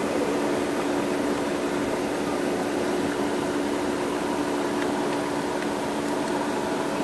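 Steady mechanical hum inside the car cabin, with a couple of steady low tones running through it, and a few faint light ticks about five seconds in.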